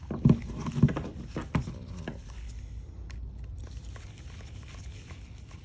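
A few light clicks and taps of hand tools and a cordless ratchet's plastic housing being handled, in the first two seconds, then a faint low hum.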